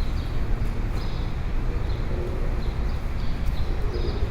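City street ambience: a steady low traffic rumble, with short high chirps recurring every half second or so.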